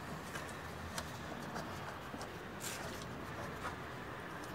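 A few faint clicks and taps, with one short scrape about two and a half seconds in, over a steady background hiss, from hand-tightening an LPG filter with a small tool.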